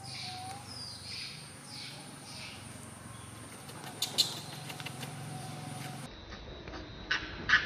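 Short, high, falling chirping calls, about two a second for the first two and a half seconds, over a steady low hum, followed by a few sharp clicks.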